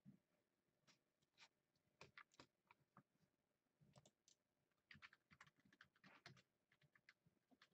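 Faint computer keyboard typing: scattered keystrokes coming in short irregular runs.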